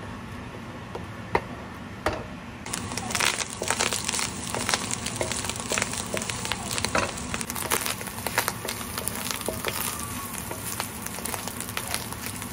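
Meat frying in a nonstick pan while a wooden spoon stirs and scrapes it. There are a couple of sharp clicks in the first two seconds, then from about three seconds in a loud, dense sizzling and crackling as the meat browns with the liquid cooked off.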